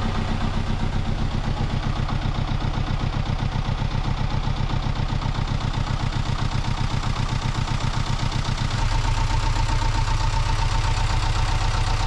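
Sailboat's inboard engine running at a steady idle with an even, rapid throb, its raw-water cooling pump turning on a freshly fitted impeller. About nine seconds in the low throb gets louder and a steady higher tone joins it.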